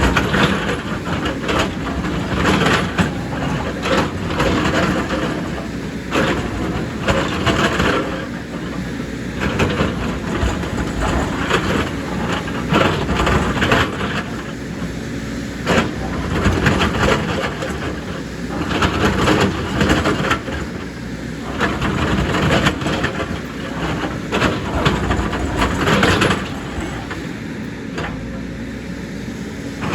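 Heavy JCB excavator at work: its diesel engine runs steadily under repeated bursts of scraping and crunching as the bucket digs into earth and rock.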